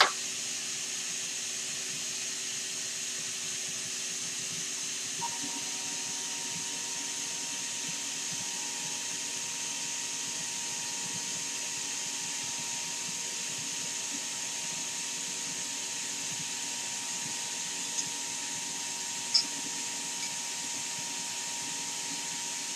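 Vacuum pump for the CNC router's vacuum table running with a steady hiss and a faint hum. A steady higher tone joins about five seconds in. There is a sharp click at the start and a couple of light ticks near the end.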